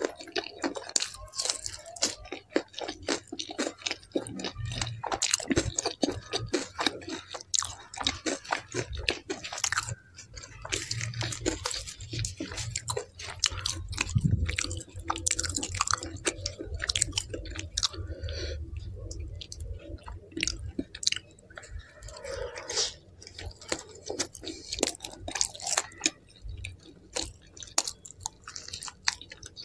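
Close-miked chewing of mouthfuls of naan, paneer curry and boiled egg, full of sharp wet mouth clicks and crunches.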